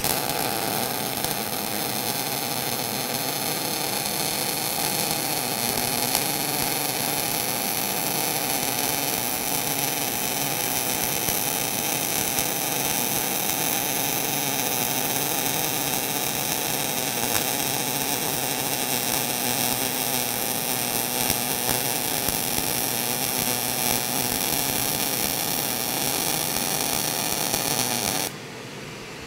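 MIG (gas metal arc) welding arc running steadily as a bead is laid down a butt joint between two metal plates, solid wire under a 75% argon / 25% CO2 shielding gas in short-arc transfer. It starts at once and cuts off sharply about a second before the end.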